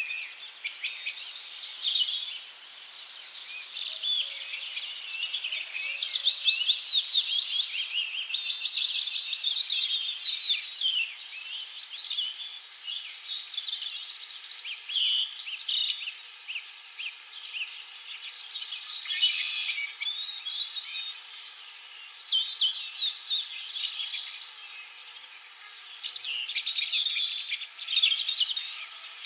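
Several songbirds chirping and singing at once in quick, overlapping trills and twitters.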